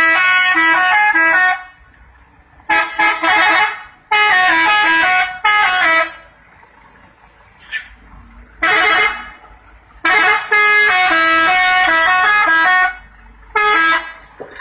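Telolet horn, a multi-tone musical air horn, playing quick stepped melodies in about six loud bursts with short pauses between them; the longest burst runs nearly three seconds.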